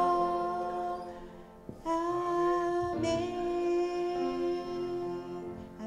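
Church worship music with long held chords. The chord changes about two seconds in and again about three seconds in, then fades toward the end.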